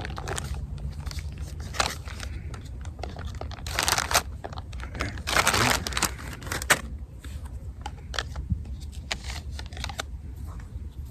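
Plastic packaging crinkling and rustling as it is handled, in irregular bursts with louder rustles about four and six seconds in and scattered small clicks.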